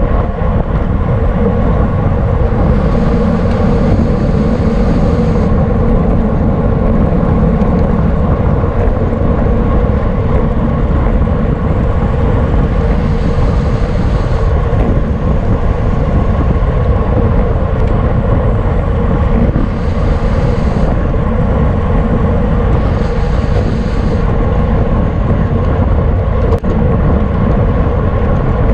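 Wind and road noise on a camera riding along in a road bicycle criterium race: a loud, steady rushing rumble with a steady hum. Four times, a brief higher-pitched hiss or buzz rises over it.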